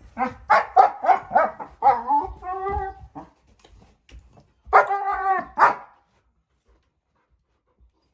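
German shepherd puppy vocalising: a quick run of short yapping barks, then a drawn-out wavering whine, then another loud burst of barks about five seconds in.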